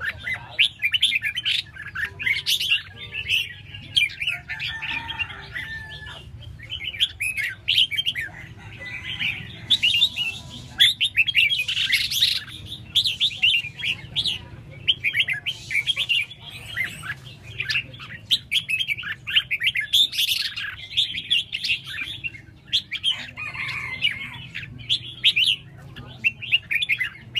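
Red-whiskered bulbuls singing: a busy run of quick, bright chirping and warbling phrases with only brief pauses.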